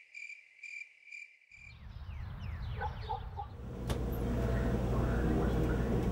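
A cricket chirping steadily, a few chirps a second, for the first second and a half. Then a low rumbling noise builds up and holds steady.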